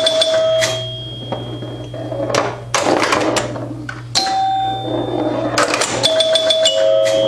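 1974 Bally Champ electromechanical pinball machine in play: its scoring chimes ring about three times, each tone lasting around a second. Under them run quick clicks and clacks of relays, stepper units and solenoids, over a steady electrical hum.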